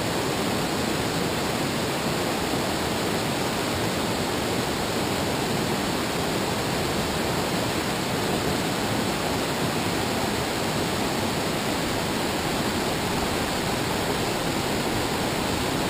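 River rapids rushing steadily: whitewater tumbling over rocks into a pool, an even, unbroken noise of running water.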